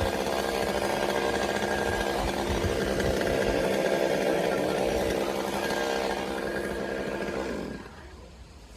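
Chainsaw running at high revs while cutting a coconut palm trunk; near the end its pitch dips and the engine cuts out.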